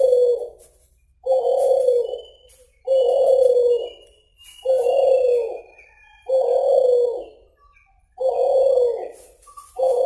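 A caged dove of the kind Indonesian bird keepers call suhu or kulhu, cooing in a steady series: about six deep coos, each roughly a second long, coming about every one and a half seconds.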